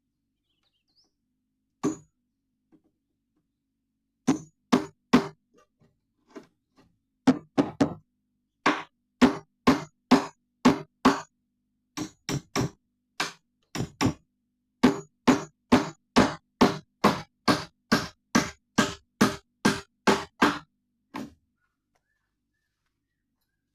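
A hammer striking repeatedly, in runs of sharp blows at about two a second with short pauses between runs.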